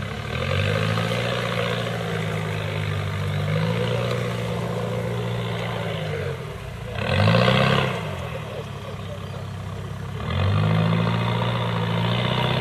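Off-road 4x4 engine revving while driving through deep mud, in three goes: a long rev held for about five seconds, then a short, sharp blip that is the loudest moment, then another held rev near the end.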